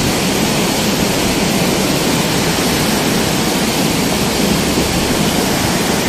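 Beas river rushing fast and full: a loud, steady roar of water that does not change.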